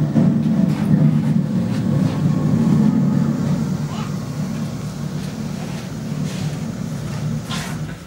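Loud, dense low rumbling drone from the installation's high-volume sound system. It eases off a little after about three seconds.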